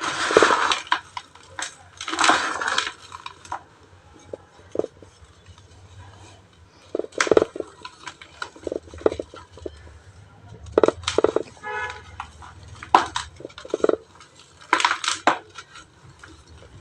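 Dry cement and ash lumps being crushed and crumbled by hand in a series of short, sharp crunches with brief pauses between them, about six louder crunches among smaller cracks and trickles of falling bits.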